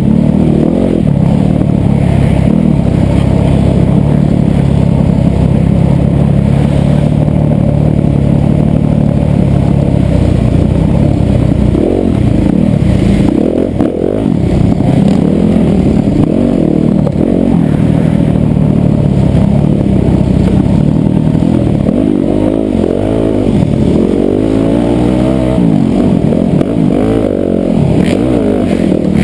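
Yamaha YZ250FX single-cylinder four-stroke off-road motorcycle engine under way, its revs rising and falling again and again as the throttle opens and closes, with a run of quick rising revs near the end.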